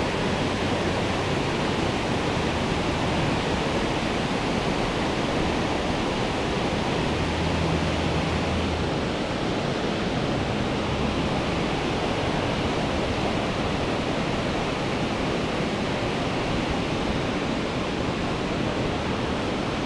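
Steady noise of flowing river water, an even unbroken hiss.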